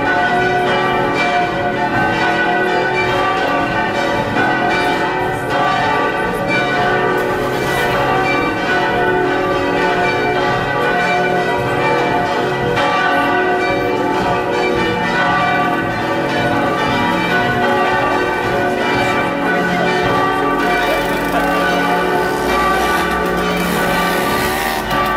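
Church bells, several ringing together in a continuous peal.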